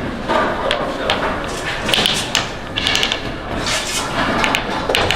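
Work clatter in a baklava production workshop: irregular knocks and clacks of tools and trays over a steady busy background.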